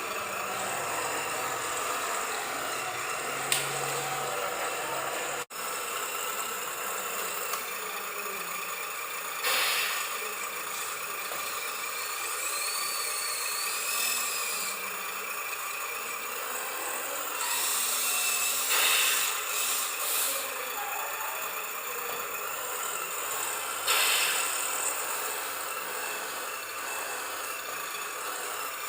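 Small electric motors and gearboxes of radio-controlled construction vehicles whirring as they drive and work, with a whine that wavers in pitch partway through and a few brief louder surges.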